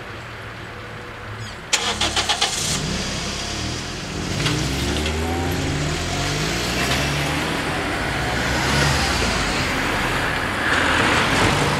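Cars pulling away and driving over a level crossing one after another once the barriers have risen, engine pitch rising and falling as each accelerates past, loudest near the end. About two seconds in there is a short, rapid clatter.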